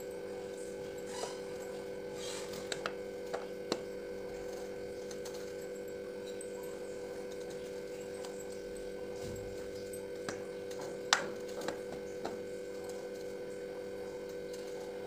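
Steady electrical hum, with scattered light clicks of a small knife peeling and cutting a green-skinned vegetable by hand; the sharpest click comes about eleven seconds in.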